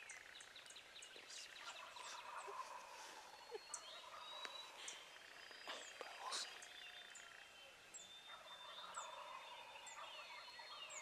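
Faint gobbling of a wild turkey, heard twice: once a couple of seconds in and again near the end. Songbirds chirp and whistle throughout.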